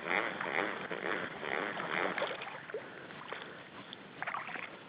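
A fish shot with a bowfishing arrow thrashing at the water surface: a quick run of splashes for about two seconds, then quieter, with a few short splashes near the end.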